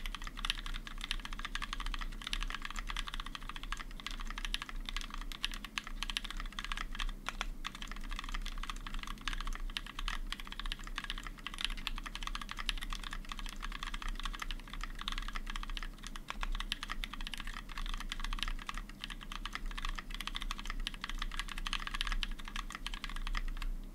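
Continuous fast typing on a custom 60% mechanical keyboard with lubed NovelKeys Cream linear switches and JTK keycaps, dense rapid keystroke clacks that stop at the very end.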